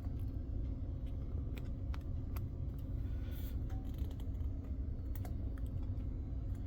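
Scattered light clicks and taps of hands handling computer case parts and cables, over a steady low hum.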